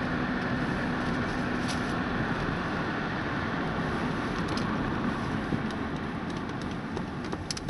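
Steady road and engine noise of a car being driven, heard from inside the cabin, with a few faint clicks near the end.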